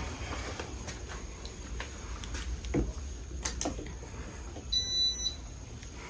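Casablanca Spirit of Saturn ceiling fan starting from rest and spinning up, with a low steady hum and scattered light clicks and ticks. A short, high beep sounds about five seconds in.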